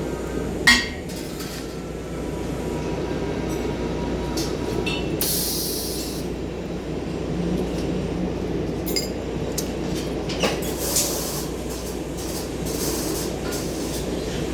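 Welding workshop noise: a steady low hum and rumble with scattered metallic clinks and a brief hiss about five seconds in and again near eleven seconds.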